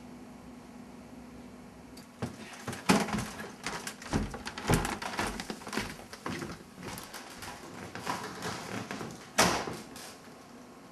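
A run of irregular knocks, bumps and clatter, like things being handled and set down, starting about two seconds in. The loudest knocks come near the start of the run and about a second and a half before the end, over a faint steady hum.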